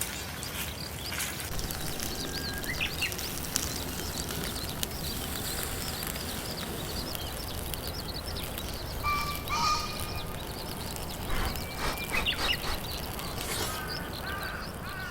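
Birds calling over a steady hiss of background noise, with many small high chirps and a few louder, clearer calls in the second half.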